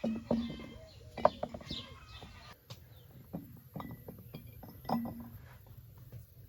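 Glass and kitchenware clinking in a series of sharp knocks. Birds chirp in the background during the first couple of seconds.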